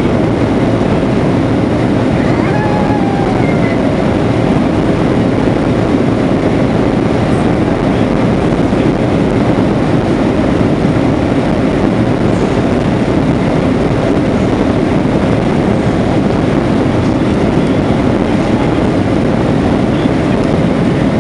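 Boeing 737-700 cabin noise while taxiing: the CFM56-7B engines at low taxi power and the airframe rolling, heard from inside the cabin as a steady rumble.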